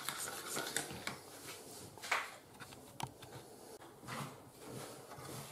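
Quiet kitchen handling sounds: a spoon stirring a liquid marinade in a plastic bowl, with a few soft scrapes and a light knock about three seconds in.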